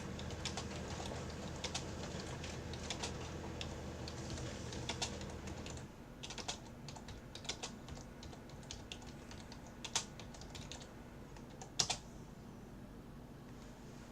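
Computer keyboard typing: irregular key clicks with a few louder keystrokes later on, over a low steady hum that cuts off about six seconds in.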